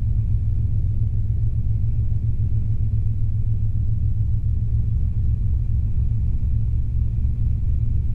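Robinson R22 helicopter cabin noise in flight: the four-cylinder piston engine and main rotor making a steady, deep drone, with power back on during recovery from a practice autorotation.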